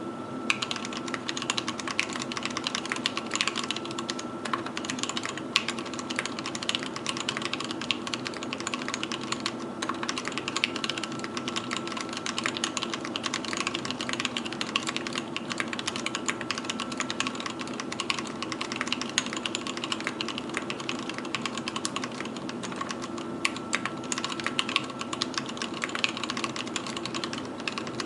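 Steady, fast typing on an Anne Pro 2 60% mechanical keyboard with tactile Gateron Brown switches, PBT XDA keycaps and an aluminium case: a dense run of keystroke clacks with a few brief pauses, over a faint steady hum.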